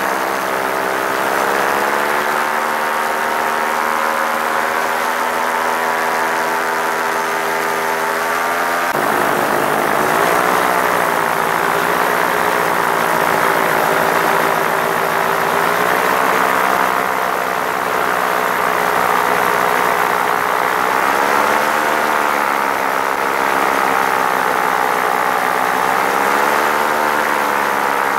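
Paramotor engine and propeller running continuously in low flight. The note changes abruptly about nine seconds in, then rises and falls several times.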